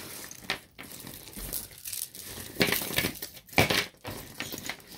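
Costume jewelry clinking and rattling as beaded necklaces and small metal pieces are picked up and stirred through in a pile, with louder clatters about two and a half and three and a half seconds in.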